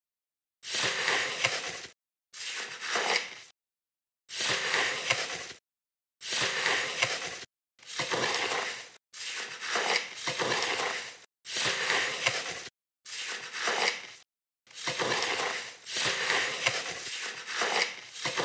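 A small metal pointing trowel scraping and smoothing wet concrete: about ten gritty strokes, each a second or so long, with dead silence between them.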